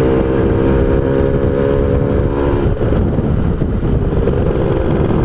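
Motorcycle engine running hard at a steady high speed while the bike is ridden on a full-throttle test run; the engine note weakens briefly about three seconds in, then picks up again.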